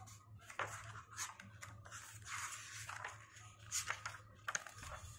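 Pages of a paperback book being flipped through by hand: paper rustling and flapping, with several sharp flicks as pages snap over. A faint steady low hum runs underneath.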